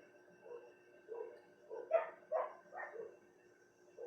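A dog giving a run of about five short yips, the loudest about two seconds in.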